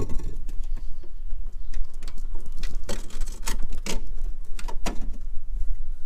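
Irregular knocks and clicks of objects being handled, bunched in the middle of the stretch, over a low rumble.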